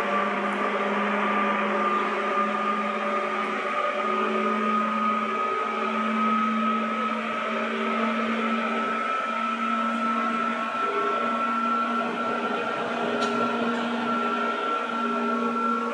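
Musashino Line 205 series electric train running, with a steady whine that rises slowly in pitch over a constant rumble of running noise.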